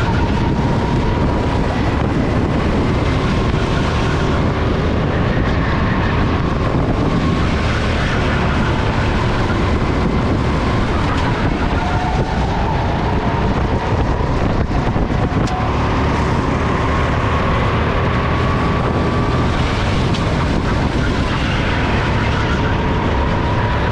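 SODI RT10 rental go-kart engine running hard, heard from the onboard camera as loud, steady engine and wind noise. Its pitch rises and falls gently as the kart speeds up and slows.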